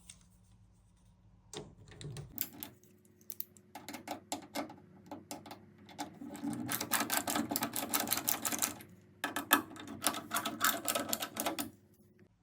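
Screws on a washing machine's drain pump being undone with a screwdriver: a fast, rattling run of clicks that starts about two seconds in and grows louder in the second half, with a brief break about three quarters of the way through.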